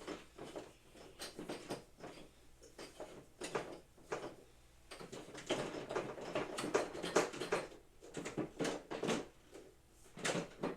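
Irregular knocks, clicks and light rattling of equipment parts being handled and fitted together, busiest in the middle and again near the end.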